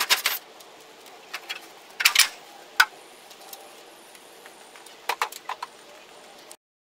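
Scattered sharp metallic clicks and clinks of hand tools and aluminum downspout parts being handled during downspout removal, in small clusters with gaps between them. The sound cuts off abruptly just before the end.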